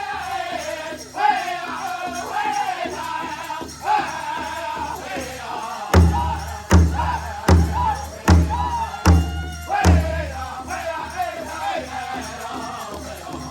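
Music with singing voices over a beat; in the middle, heavy low drum hits come about every three quarters of a second for a few seconds.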